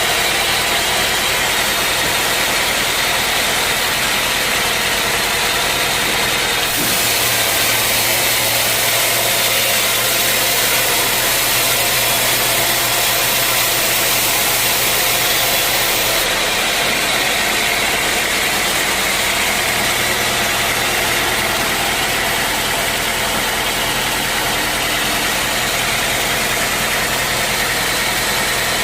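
Sawmill machinery running steadily with a loud mechanical drone and hiss. The high hiss grows brighter for about nine seconds in the middle.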